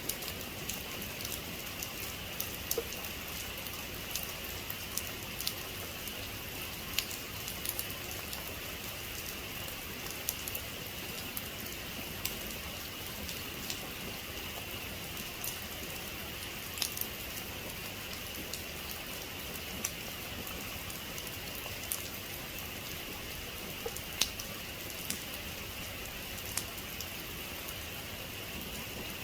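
Steady rain falling, with scattered sharp clicks of single drops striking a hard surface.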